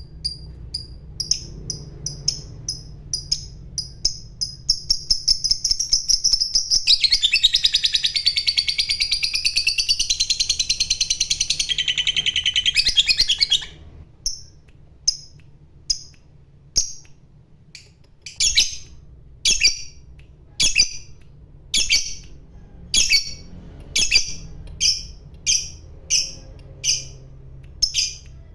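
A lovebird chirping in short, sharp, repeated calls that speed up about six seconds in and run together into a long rapid trill, the 'ngekek' chatter. The trill lasts about seven seconds, then cuts off suddenly, and separate chirps about a second apart follow.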